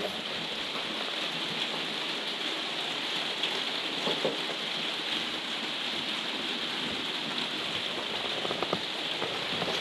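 Steady rain falling on a conservatory roof, an even hiss with no break.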